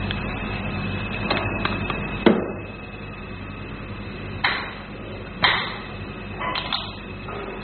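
A handful of sharp plastic clicks and knocks, the loudest about two seconds in, as an IPL hair-removal machine's handpiece connector and hose fittings are handled and pushed into its socket panel, over a steady hum.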